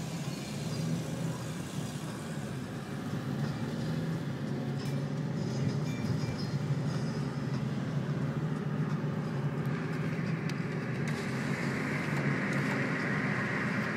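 Holden Commodore SS V8 with an aftermarket Borla exhaust, driving along and heard from inside the car: a steady low engine and exhaust drone under road noise. A higher hiss of wind and tyre noise builds about ten seconds in.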